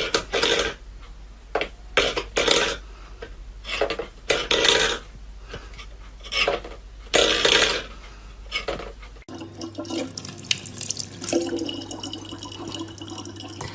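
Water splashing in short, irregular bursts. About nine seconds in, it gives way to a steadier sound of running water over a low hum.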